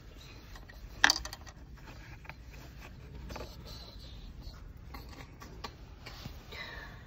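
Hands pressing dashboard plastic trim around a car stereo head unit: one sharp plastic click about a second in, then faint rubbing and handling of the plastic.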